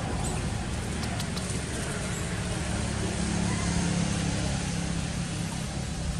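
Steady low rumble of road traffic, with a faint engine hum swelling about three seconds in.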